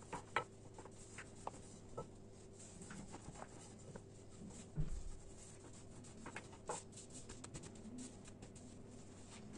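Faint rubbing and scraping of a rolling pin rolling out dough on a board, with scattered light taps and a soft thump about five seconds in.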